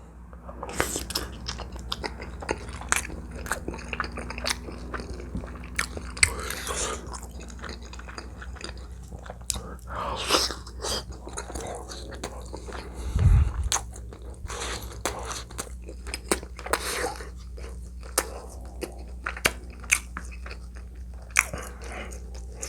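Close-miked mouth sounds of someone eating: biting and chewing with many short wet smacks and clicks. A low thump about thirteen seconds in.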